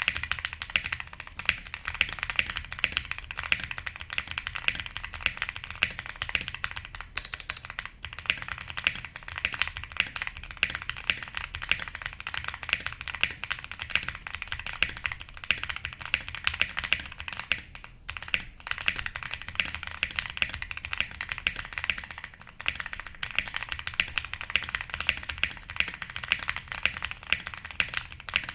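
Fast, continuous typing on a Link 65 mechanical keyboard, a dense run of key strokes with a thocky tone and a couple of brief pauses.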